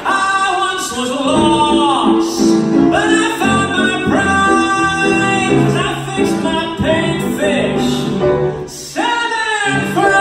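A man singing with grand piano accompaniment, holding long notes.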